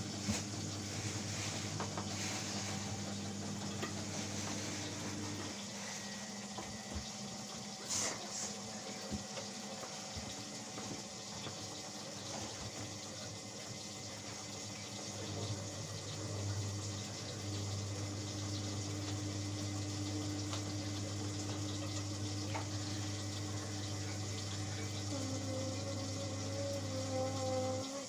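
Indesit washing machine taking in water: a steady hiss of water into the machine over a steady low hum. The hum stops about five seconds in and comes back about halfway through.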